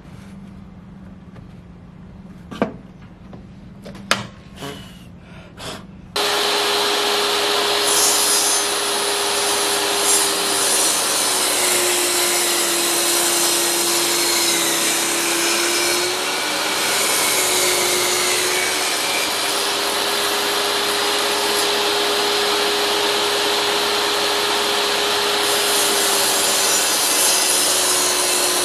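A few sharp knocks, then a benchtop table saw comes on abruptly about six seconds in and runs loud, its motor whine mixed with the blade's cutting noise as a board is pushed at an angle across the blade to cut a cove. The whine sags slightly in pitch twice, as the cut loads the motor.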